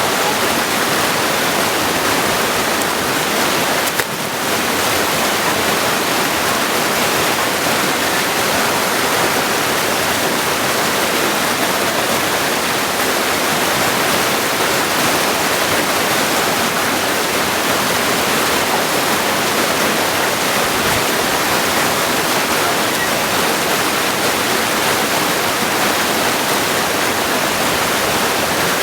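Mountain creek rushing over rocks: a loud, steady, full water rush, with a momentary break about four seconds in.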